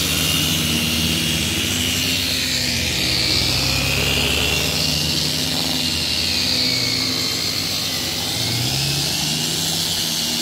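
Small angle-grinder-style electric polishers running steadily with their pads pressed on windshield glass, polishing out scratches and waviness with red glass-polishing compound. The motor whine wavers up and down in pitch as the pads are worked over the glass.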